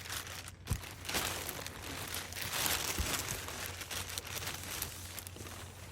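Crinkling and rustling of bags and gear being handled and packed, with scattered small knocks.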